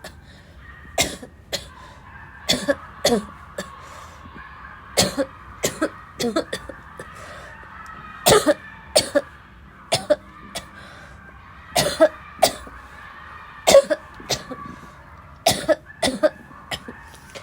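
A person's harsh barking cough in a prolonged fit: about twenty short, sharp coughs, mostly in quick runs of two or three, with brief gaps between.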